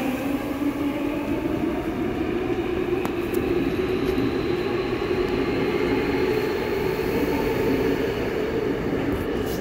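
Seoul Subway Line 7 electric train pulling away from the platform and picking up speed. Its wheels and running gear make a steady running noise, with a faint high whine slowly climbing in pitch.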